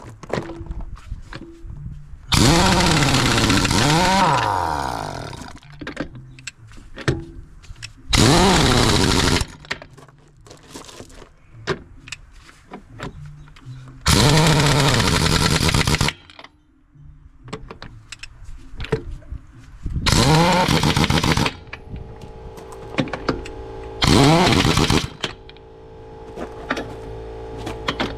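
Impact wrench running on truck wheel lug nuts in five separate bursts of one to three seconds, its pitch sliding up and down as the nuts turn and seat. A steady hum comes in underneath for the last few seconds.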